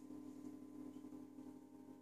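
Faint, steady electrical hum of running vintage oil rain lamps, with no other event.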